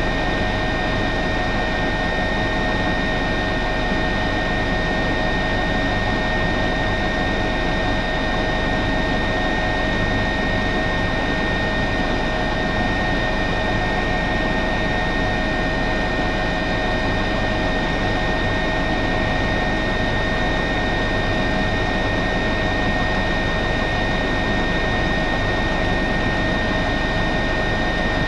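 Cockpit noise of an Airbus Helicopters H145, with its twin turboshaft engines and rotor running in level cruise flight. A steady whine of several high tones sits over a constant broad rush and does not change.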